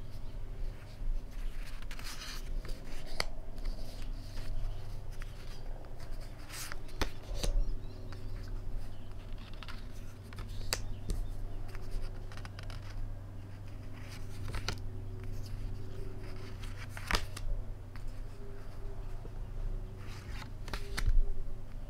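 Stiff paper pages of a photo desk calendar being handled and turned one by one: soft rustles and short crisp flicks every few seconds, over a steady low hum.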